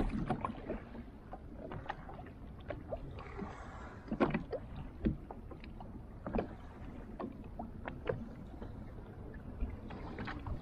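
Small waves lapping and slapping against a kayak's hull, with irregular small splashes and knocks over a low wash of water and light wind.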